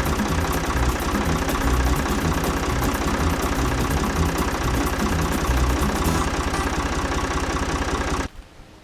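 Engine idling with a steady, even firing pulse; it cuts off abruptly near the end.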